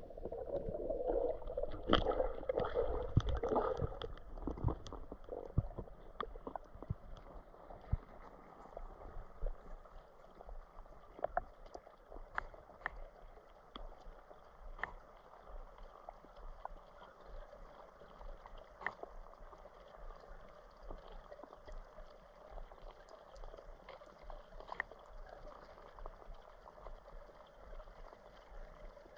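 Water sounds heard underwater around a snorkeler diving with a mask: louder gurgling and knocks for the first few seconds, then a quieter steady water noise with scattered sharp clicks.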